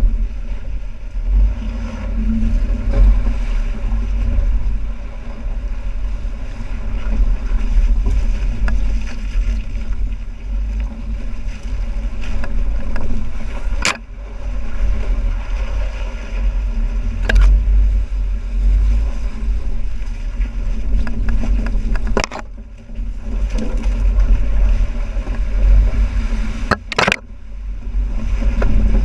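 2012 Jeep Wrangler Unlimited JK's 3.6-litre V6 running at low speed off-road in a creek, a heavy low rumble throughout. A few sharp knocks come through, about four in all, at irregular intervals.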